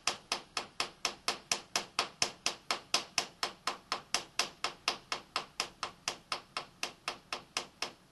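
Soft-faced hammer tapping rapidly and evenly on the side of a milling-machine vise, about four to five light blows a second, nudging the vise round to square its jaw with the machine's travel.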